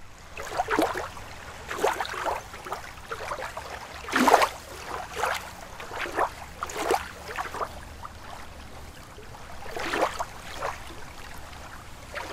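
Water lapping and splashing in irregular surges every second or two, over a low steady rumble.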